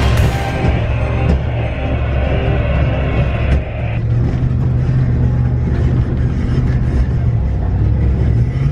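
Ford Raptor pickup's 6.2-litre V8 and drivetrain heard from inside the cab as the truck climbs a rough desert trail: a steady deep rumble, with music playing over it.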